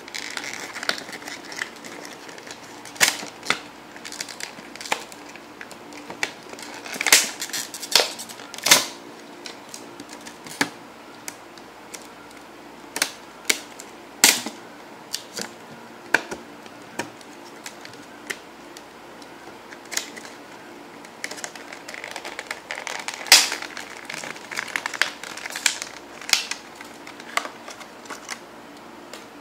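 Stiff clear plastic blister pack being pried apart and handled by hand to free a 2x2 puzzle cube: irregular sharp cracks, clicks and crinkles as the plastic flexes, with a few louder snaps.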